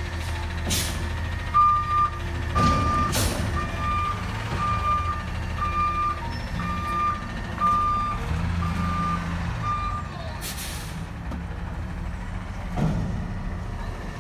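Natural-gas front-loader garbage truck reversing: its backup alarm beeps about once a second, nine times, over the engine's low running. Short hisses of air from the brakes come a few times, the loudest about ten seconds in.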